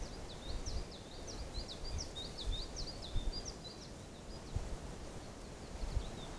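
A small songbird sings a fast run of short, high notes lasting about three seconds, over a low rumble of wind on the microphone.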